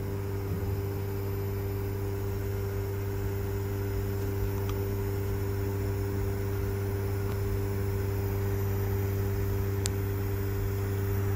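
A steady low machine hum with several even overtones, with a few faint clicks, the clearest near the end.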